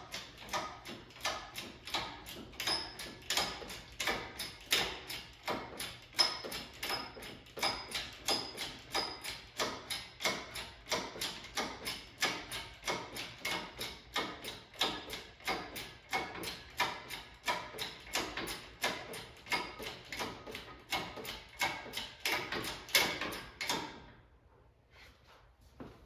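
A hand tool worked in steady repeated strokes, making sharp mechanical clicks about three times a second. The clicking stops suddenly a couple of seconds before the end.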